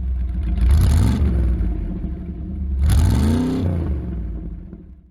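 Vehicle engine running with a low rumble, revved twice: briefly about a second in and again, longer, around three seconds in, then fading away near the end.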